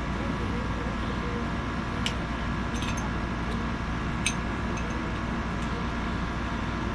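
A few faint, light clicks and clinks of small parts being handled while working on a BB pistol's sights, over a steady background hum.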